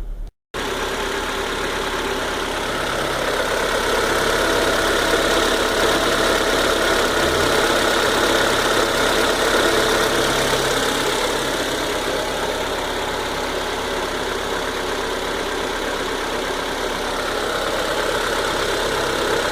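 Citroën C4 VTR engine idling steadily under the open bonnet, with no belt squeal: the alternator belt has just been replaced and the squeal is gone.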